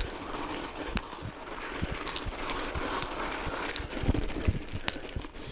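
Mountain bike rolling over a loose gravel track: a steady crunch and rumble of tyres on stones, with scattered sharp clicks and rattles from the bike over the bumps.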